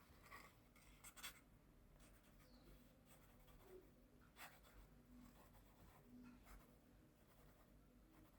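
Very faint scratching with a few light clicks, the loudest just over a second in.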